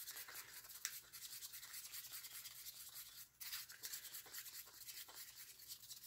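Wooden craft stick stirring thick acrylic paint in a small cup, working in a few drops of water: a quick, faint run of scraping strokes against the cup, with a short break about three seconds in.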